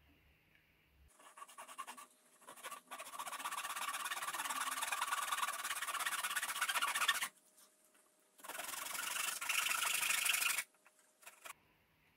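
Kitchen knife sawing through the cardboard wall of a Pringles can: a rasping scrape of rapid back-and-forth strokes in two long runs, the second after a pause of about a second, then a couple of short scrapes near the end.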